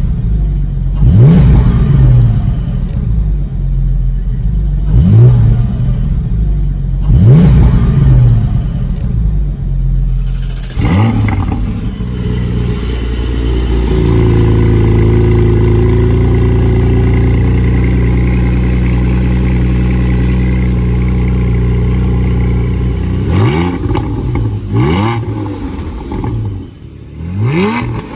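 Porsche 718 Cayman GT4's 4.0-litre flat-six engine and exhaust being revved: about five sharp blips roughly two seconds apart, each rising and falling. It is then held at steady raised revs for about nine seconds before a few more blips near the end.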